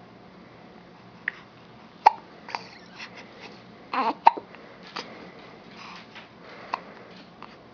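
A baby hiccuping: about half a dozen short, sharp hiccups at irregular intervals, with a little babbling.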